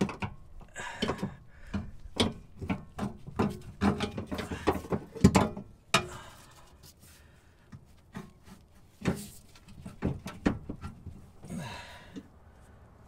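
Irregular knocks, clunks and scraping of a steel rear upper control arm being worked into its mount on a 2013 Chevrolet Camaro's rear subframe. Many quick knocks come at first, then a short lull, then more knocks and a longer scrape near the end.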